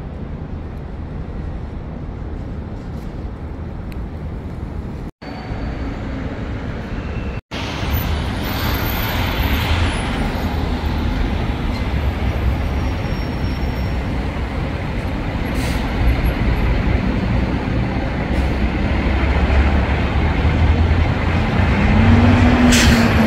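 City vehicle traffic running as a steady low rumble, growing louder over the second half. It cuts out briefly twice, and a short rising-then-falling engine tone comes near the end.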